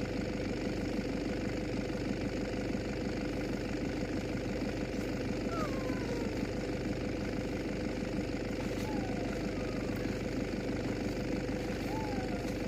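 An engine running steadily at idle, an even hum with a constant tone. A few short falling whistle-like sounds come over it, around the middle and near the end.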